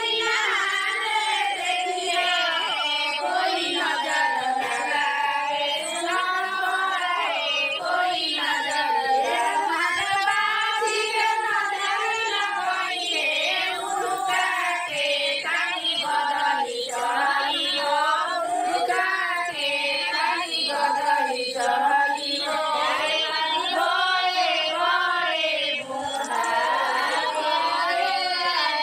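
Female voices singing a song, one melody that keeps going without breaks.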